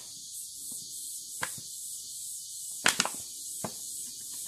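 Sharp clicks and crackles of a plastic PET bottle being pierced and cut with a small knife, a few isolated ones with the loudest cluster about three seconds in, over a steady high hiss.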